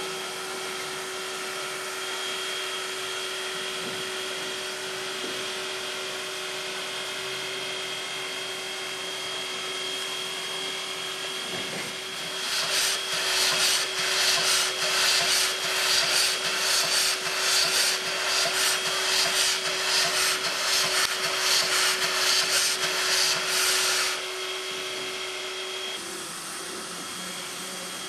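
Steam locomotive (ČSD class 498.1 'Albatros') standing under steam with a steady whining hum; about halfway through, loud rhythmic steam hissing sets in at about two puffs a second for some twelve seconds, then stops and the steady hum goes on.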